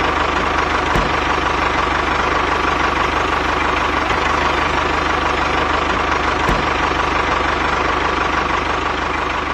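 Small tractor engine idling steadily with a fast, even chug.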